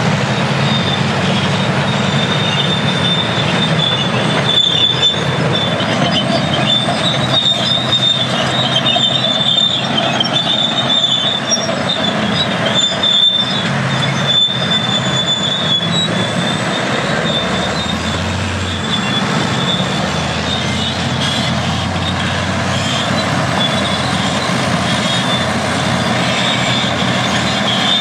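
International Harvester TD25 Series C crawler bulldozer working: its diesel engine runs under a steady high squeal, typical of steel crawler tracks running over their rollers and idlers. The engine's low note swells briefly a little past the middle.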